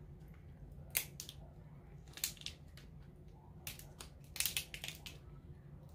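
Boiled lobster tail shell cracking as it is pried apart by hand: a sharp crack about a second in, a couple more near the middle, then a quick run of cracks and crunches a little later.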